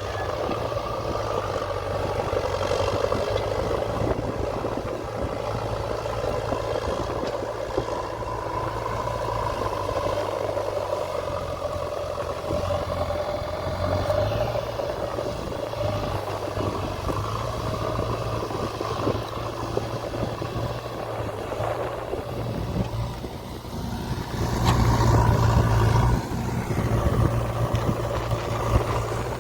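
Diesel engine of a JCB 3DX backhoe loader running steadily, rising in level for a few seconds near the end as it is revved.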